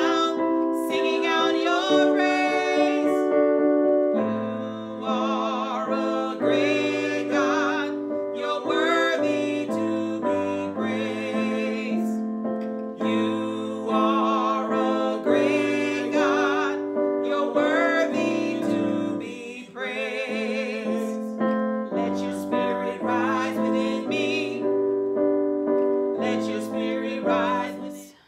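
Slow worship music: a keyboard plays sustained chords over a changing bass line, with a wavering, wordless vocal line above it. It stops abruptly near the end.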